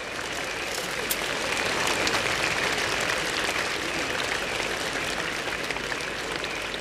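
Crowd applauding, the clapping swelling to its loudest about two seconds in and then carrying on steadily.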